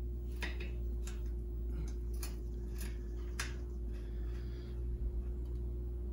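A 15 mm wrench clicking on a bicycle's rear axle nut as the nut is worked loose: a string of short, sharp metal ticks, about two a second for the first three and a half seconds, then fainter, over a steady low hum.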